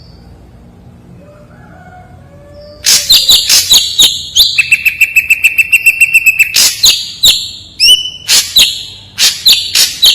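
Ashy drongo singing: about three seconds in, a loud series of sharp, harsh notes begins, including a rapid run of about seven notes a second over a steady ringing tone. Near the end come more sharp notes and one rising whistle.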